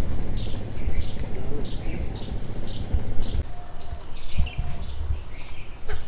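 High, thin chirps repeating steadily about twice a second, with a low rumble underneath that eases off about halfway through.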